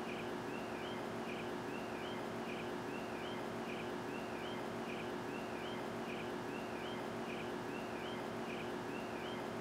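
Steady outdoor night background of hiss and a low electrical hum, with a faint, high chirp that repeats at an even pace from a small animal.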